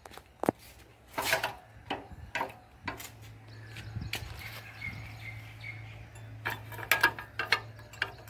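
Scattered clicks and knocks of a used roof rack's rusty steel foot brackets being handled, with a cluster of quicker clicks near the end. A low steady hum comes in about three seconds in.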